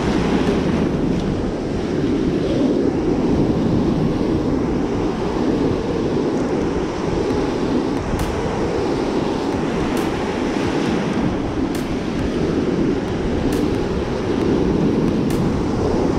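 Ocean surf breaking and washing up a sandy beach, a steady rush that swells and eases, with wind buffeting the microphone.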